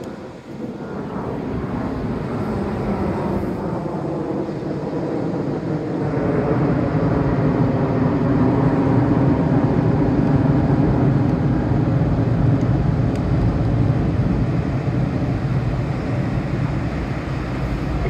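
A low engine drone builds over the first six seconds and then holds steady, over the wash of breaking surf.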